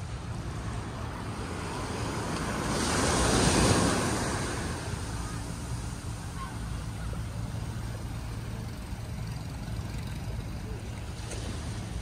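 Small waves washing onto a sandy beach, with one louder wash that swells and fades about three to four seconds in. A steady low wind rumble on the microphone runs underneath.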